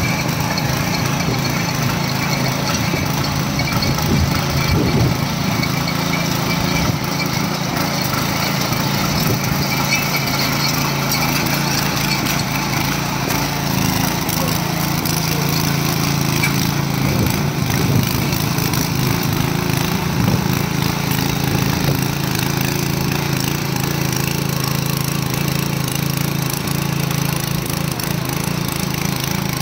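A 7 HP petrol power weeder's engine running steadily under load while its 32-blade rotary tines churn through dry soil.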